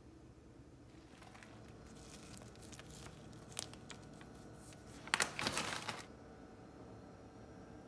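Dry crinkling and crackling from handling Oreo cookies and their plastic wrapper: scattered small crackles, then a dense, louder burst about five seconds in that lasts about a second.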